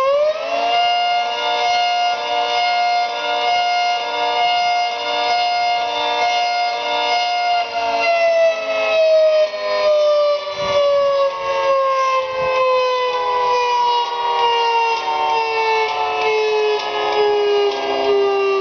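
Federal Signal 3T22 outdoor warning siren sounding: its tone climbs quickly at the start, holds a steady high pitch, then about eight seconds in begins a slow wind-down, with a regular pulsing in the sound. The siren's intake is blocked, which gives it a high pitch and a pulsing sound when its solenoids are activated.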